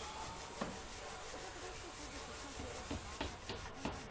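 Wood being rubbed down by hand with sandpaper: a steady, soft scraping with a few light taps.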